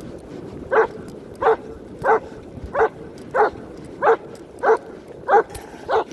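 A dog barking repeatedly at a steady pace: nine short barks, about three every two seconds.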